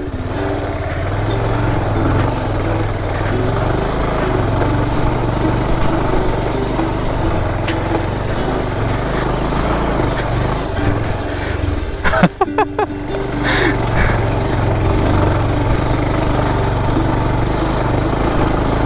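Small motorcycle engine running steadily under way on a rough road.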